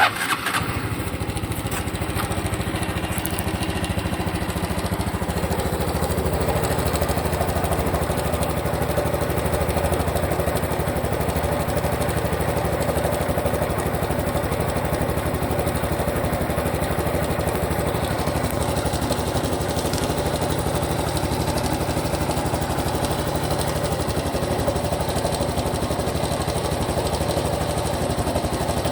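Honda Super Cub Pro's single-cylinder four-stroke engine starting up and then idling steadily. It still makes the abnormal noise that an oil change was meant to cure.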